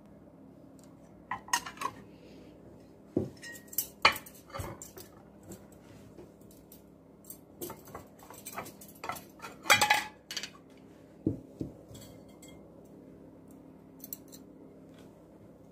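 Porcelain plates set down on the table and metal forks clinking against them: scattered clinks and knocks in several clusters, the loudest about ten seconds in.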